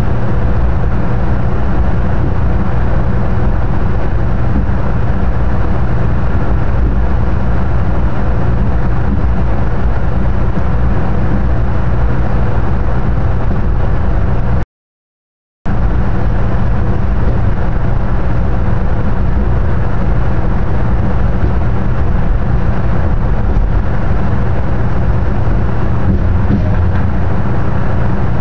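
Steady, loud rumble of the Amtrak California Zephyr passenger train running at speed, heard from on board the train. The sound drops out completely for about a second midway, then resumes.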